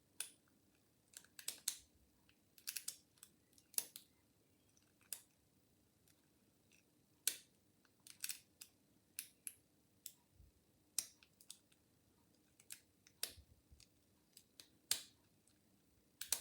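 A lock pick and tension tool working the pin tumblers of a brass padlock, making faint, irregular metallic clicks and ticks every second or so as the pins are set. The lock is still locked.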